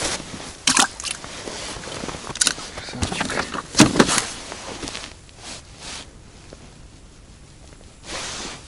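A plastic ice-fishing seat box being handled: a few sharp knocks and clatters over rustling, the loudest two close together about four seconds in as its lid is shut. Then it is quieter.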